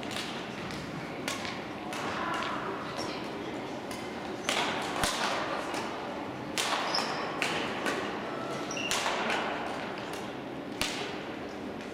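Badminton rackets hitting shuttlecocks during doubles rallies: sharp hits at irregular intervals, some overlapping from neighbouring courts, echoing in a large sports hall.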